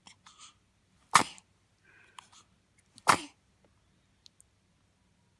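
A person sneezing twice, two sharp loud sneezes about two seconds apart, with fainter short breathy sounds before them.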